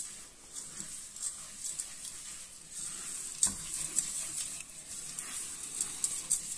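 A spatula stirring and scraping crushed digestive biscuits and melted butter around a stainless steel saucepan, in repeated rough strokes, with one sharper knock against the pan a little past halfway.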